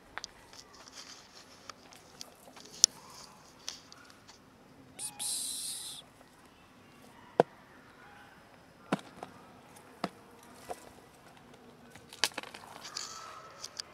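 Plastic food storage box being handled and its clip-on lid taken off: a series of sharp clicks and snaps, with a brief hissing rustle about five seconds in.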